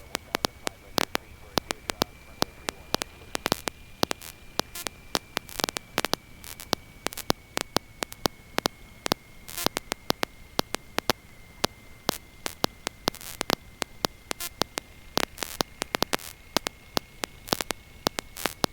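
Crackling electrical static: irregular sharp clicks, several a second, over a faint hiss and a steady high-pitched whine on the cockpit intercom audio line.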